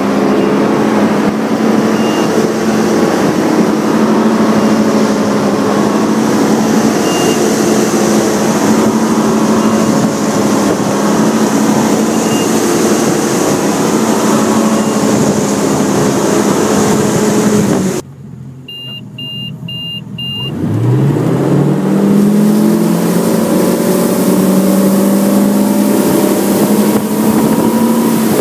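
Nautique ski boat's inboard engine running steadily at towing speed, with rushing wake and spray. About two-thirds through, the sound drops away and four quick electronic beeps are heard. Then the engine revs up, its pitch climbing, and settles back into a steady pull.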